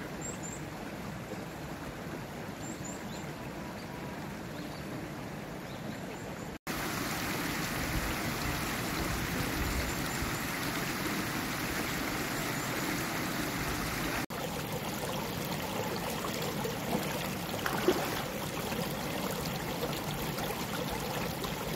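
Shallow garden stream running over rocks: a steady rush of water that turns louder and fuller with a sudden jump about a third of the way through, then briefly drops out and resumes about two-thirds through.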